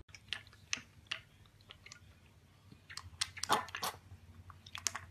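A piglet slurping milk from a stainless-steel bowl: a run of short wet smacks and sucking clicks, busiest a little past halfway.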